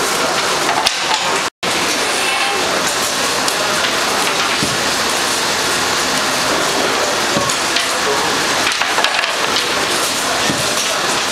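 Crisp, freshly baked matzahs crackling and clattering as they are handled in a wire basket, over a loud steady noise. The sound cuts out for an instant about one and a half seconds in.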